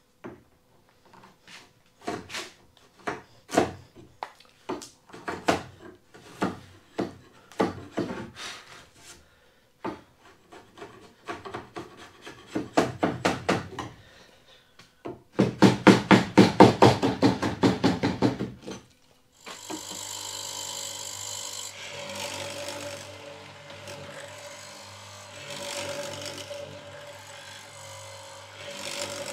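A large framing chisel paring shavings off a timber tenon in repeated scraping strokes, coming in a faster, louder run of short strokes towards the middle. After a short gap, a hollow-chisel mortiser's motor starts and runs steadily, its noise swelling and easing as the chisel bit is plunged into the wooden post.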